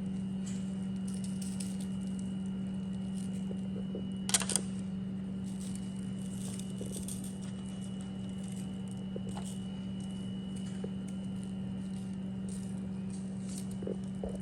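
A steady low hum throughout, with faint scattered taps and rustles of seasoning being shaken over raw chicken in a pan. One sharp click comes about four seconds in.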